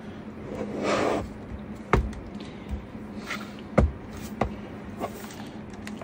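Handling noise from a Razer Blade 15 laptop on a wooden desk: a brief brushing swish about a second in, then a few sharp knocks and clicks as it is shut down, closed and turned over, over a faint steady hum.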